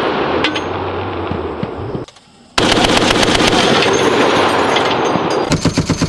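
6.8mm M250 belt-fed machine gun firing full-automatic in long bursts, with a sudden half-second break about two seconds in. Near the end the shots come apart into a steady rhythm of about nine a second.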